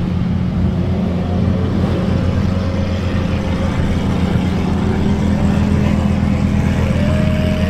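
A car engine running steadily, with road noise.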